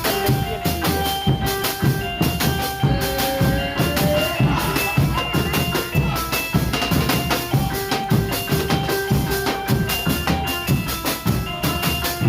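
Background music with a steady drum beat and a melody of held notes.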